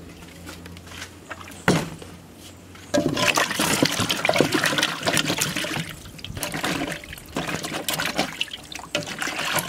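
A single knock, then from about three seconds in, hands sloshing and splashing pieces of coconut flesh around in a metal basin of water, washing them.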